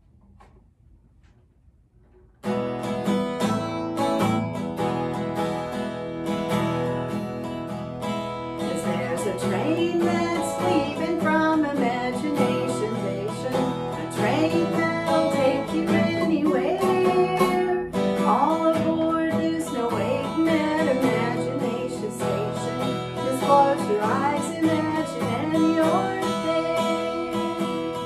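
Acoustic guitar strummed, starting about two and a half seconds in, with a woman's voice singing along from about nine seconds in.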